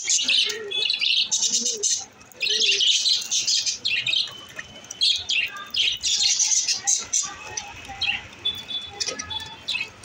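A flock of pet budgerigars chattering and chirping in fast warbling bursts. It is busiest in the first seven seconds and thins to scattered chirps near the end.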